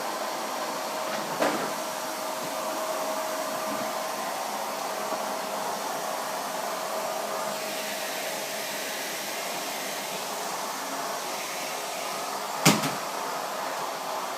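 Vacuum cleaner running steadily, with a faint steady whine over its rushing noise. Two sharp knocks cut through it, one about a second and a half in and a louder one near the end.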